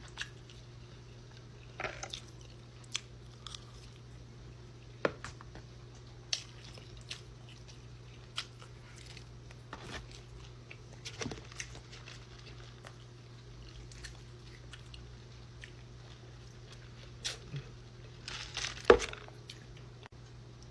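A person chewing and biting into fried chicken wings: scattered crunches and small clicks, with a louder cluster near the end, over a steady low hum.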